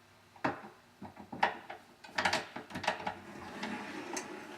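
A string of short metal clicks and clinks at irregular spacing as the forearm and forearm bolt of an LCN 1460 door closer arm are handled and fitted into place.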